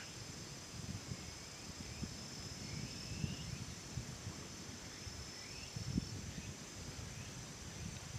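Quiet outdoor ambience: a steady high-pitched drone, a few short rising bird chirps, and low rumble of wind on the microphone.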